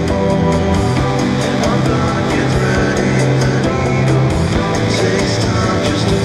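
Rock song with guitars, bass and a steady drum beat. The bass notes shift about a second in and again past four seconds.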